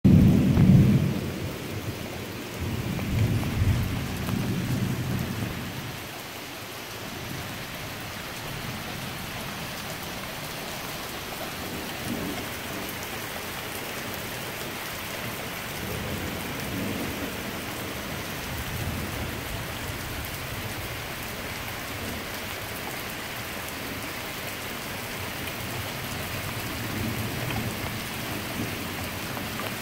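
Steady rain pouring down on pavement and lawn, with thunder rumbling loudly at the start and again a few seconds in, then only faint low rumbles under the rain.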